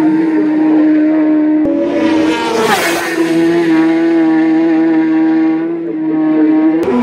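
Racing superbike passing at speed about three seconds in, its engine note falling as it goes by, over a steady held tone.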